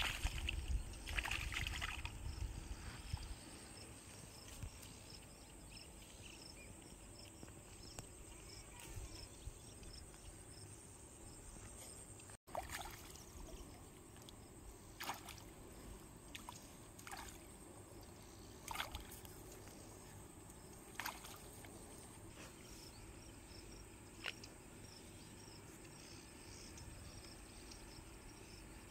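Quiet outdoor ambience with faint steady insect chirping. A burst of low rumbling noise fills the first couple of seconds, and a handful of short sharp clicks are spread through the second half.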